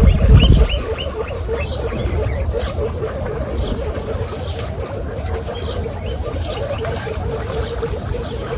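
Guinea pigs chewing thin strips of raw carrot, a fast, steady run of small crunching bites. A few short high chirps and a loud low rumble come in the first second, over a steady low rumble.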